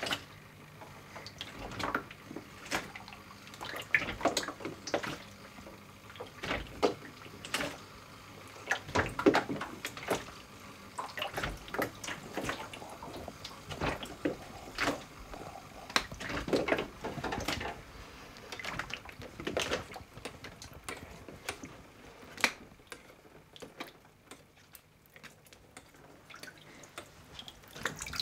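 Photographic processing solution sloshing and lapping in a shallow darkroom tray as it is agitated over a black-and-white print, in short irregular splashes. The splashing grows quieter near the end.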